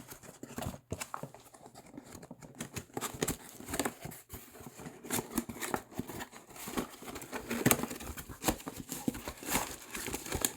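A cardboard parts box being opened by hand: irregular rustling, crinkling and tapping of cardboard and packaging.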